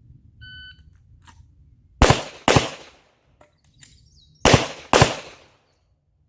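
A shot timer's short electronic beep sounds, then a handgun fires four shots in two quick pairs, a little over two seconds apart.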